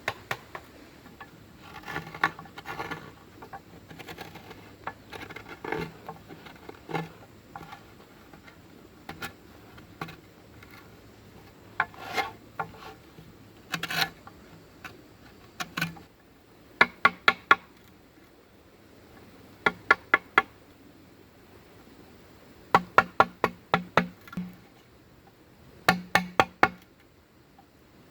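Bamboo being worked with hand tools: scattered knocks and scraping, then runs of four or five quick, sharp strikes on hollow bamboo that ring with a clear tone.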